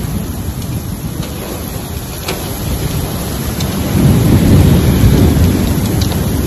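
Heavy storm rain and wind with a steady deep rumble, growing louder about four seconds in.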